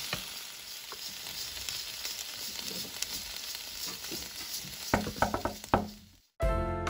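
Julienned potatoes, carrot and onion sizzling in oil in a frying pan as they are stir-fried with a wooden spatula, with a few knocks about five seconds in. The sizzle cuts off shortly after, and music begins just before the end.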